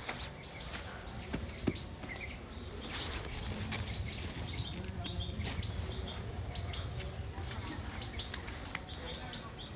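Small birds chirping in short repeated notes over a steady low rumble, with scattered sharp clicks as a large knife slices a pineapple.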